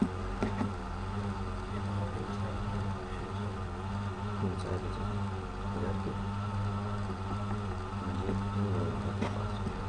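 Steady low electrical-type hum, with faint distant voices wavering above it and a few soft clicks, one near the start and one near the end.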